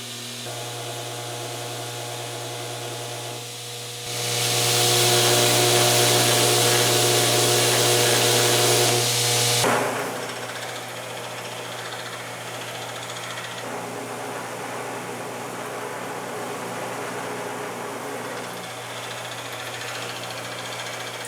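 Electric grinder running steadily during cleanup of forged damascus steel chisels, with a louder stretch of hissing grinding from about four to ten seconds in as the steel is worked against it.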